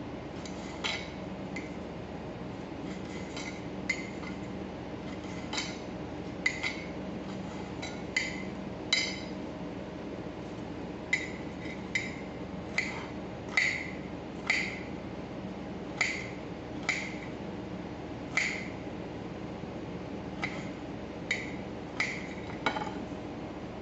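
Kitchen knife blade striking a ceramic plate again and again as green bell pepper is diced on it: sharp clinks with a short ring, irregular, about one a second. A steady low hum runs underneath.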